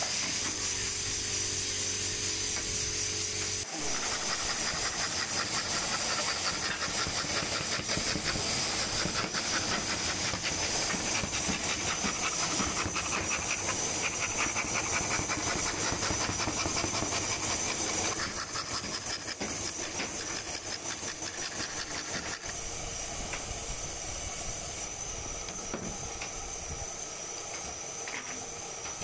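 Scroll saw's thin reciprocating blade cutting through a wooden board: a fast, even chatter of blade strokes with a high hiss. The cutting starts about four seconds in and grows quieter about two-thirds of the way through.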